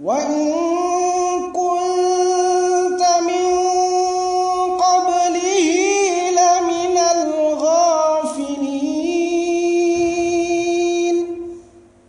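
A man reciting the Quran in the melodic tilawah style: one long phrase sung on a single breath, holding notes with ornamental turns in pitch in the middle, and ending shortly before the close.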